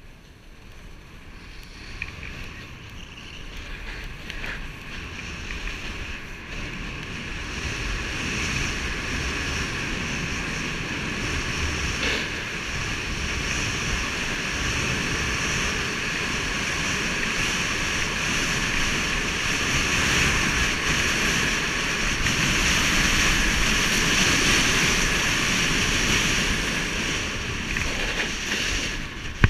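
A Never Summer Proto HDX snowboard sliding and carving over packed snow, with wind rushing over the action camera's microphone. The rush grows louder over the first several seconds as the run picks up speed, then stays steady.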